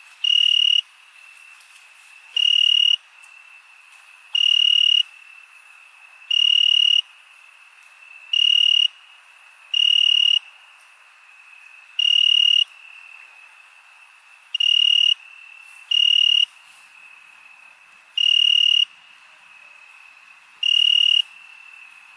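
Night insect chorus: a loud cricket chirp, about half a second long, repeating roughly every two seconds over a steady high-pitched trill from other insects.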